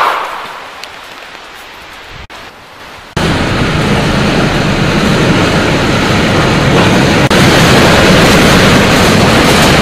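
The echo of a pump-action shotgun shot dies away in the first second. About three seconds in, a loud steady rushing noise with a low hum starts suddenly: a small rail locomotive running through a tunnel.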